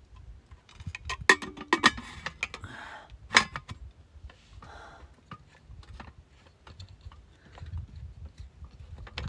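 Clicks and knocks of small objects being handled while packing up, the sharpest about one, two and three and a half seconds in, fewer and fainter later, over a low steady rumble.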